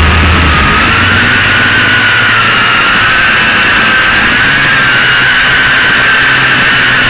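FPV quadcopter's electric motors and propellers whining, recorded by the camera on board, over a steady rush of air noise. The whine's pitch wavers and drifts slightly upward over the first couple of seconds.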